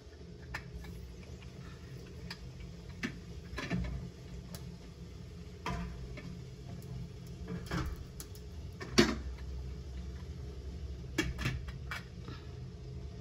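Stainless steel steamer pot being handled: its glass lid lifted off and put back on and a metal pudding tin set onto the perforated tray, giving scattered clinks and clanks of metal and glass, the loudest about nine seconds in. A steady low rumble runs underneath.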